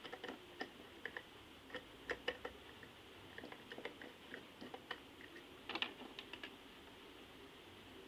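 Irregular light clicks and taps of hands working on a plastic lamp holder, LED bulb and wiring, in quick clusters that stop about six and a half seconds in.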